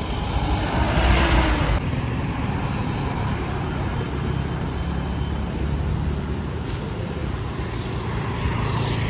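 City road traffic: motorbikes, scooters and cars passing, a steady engine and tyre rumble. One vehicle passes close and loud about a second in, and another swells up near the end.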